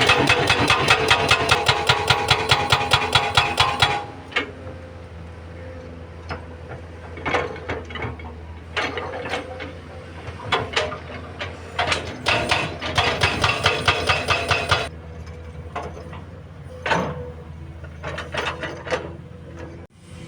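Hydraulic rock breaker on a SANY SY215C excavator hammering rock with rapid blows, about eight a second, for the first four seconds, over the steady running of the excavator's diesel engine. After that, the engine runs on under scattered knocks and rock clatter, with another spell of hammering about twelve seconds in.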